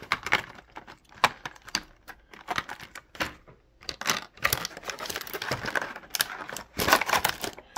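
Clear plastic blister trays and hard plastic model-kit parts being handled: irregular clicks, taps and crackles, busiest near the end.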